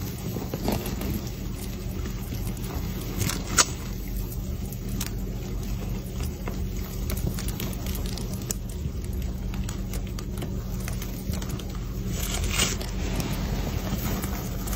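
Faint crackling and scraping of a python's loosening shed skin rubbed and peeled by hand, with a sharp click about three and a half seconds in and a brief louder rustle near the end, over a steady low hum.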